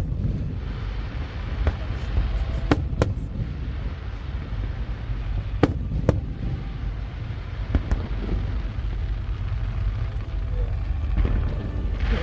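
Aerial fireworks going off: several sharp bangs at irregular intervals over a steady low rumble.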